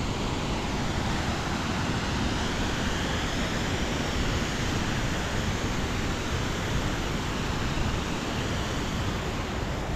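Steady rushing wind buffeting the microphone, with a low fluttering rumble and no breaks.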